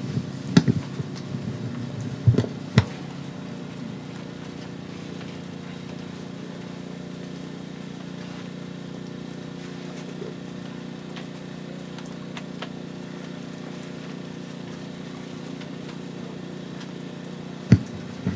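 A steady low hum through a PA system, with a few sharp knocks of the microphone being handled in the first three seconds and another just before the end.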